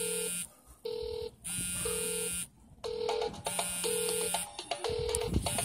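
Electronic beeping: a short steady beep, a low steady tone and a high ringing tone take turns in a pattern that repeats about once a second. A low bump comes near the end.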